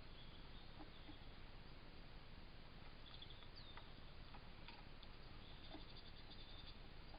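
Near silence: a wildlife camera's steady hiss with faint, distant bird chirps about three seconds in and a quick, faint trill of ticks near the end.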